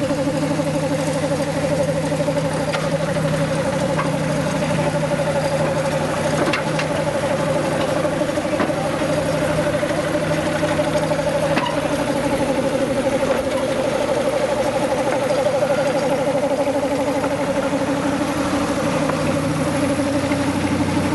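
A steady engine-like running sound that holds one pitch throughout, with a few faint clicks.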